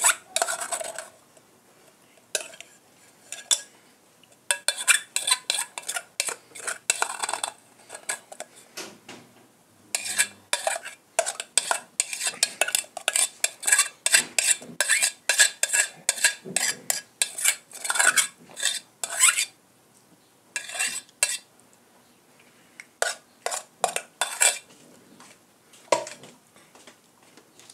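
Metal spoon scraping and clinking against a small aluminium pot, scraping the food out onto a plate of rice, in quick runs of strokes with short pauses between them.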